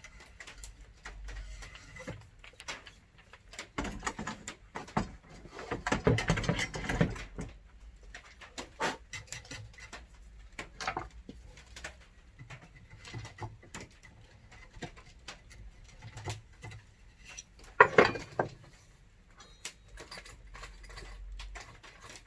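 An old hand drill turning an auger bit through 19 mm plywood: irregular clicks and crackles of the bit cutting the wood, with louder stretches about four to seven seconds in and again near eighteen seconds.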